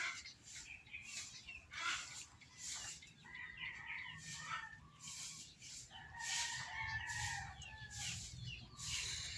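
A rooster crows twice in the background, each crow a held call of a second or more. Around it come short, sharp, breathy intakes of breath about once a second: a person's catching breaths on a sneeze that does not come.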